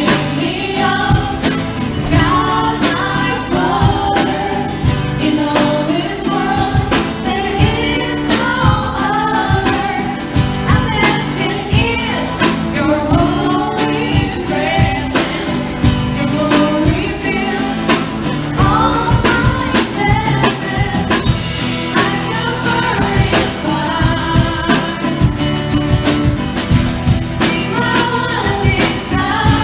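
Church choir singing a contemporary Christian worship song, with instrumental accompaniment and a steady drum beat.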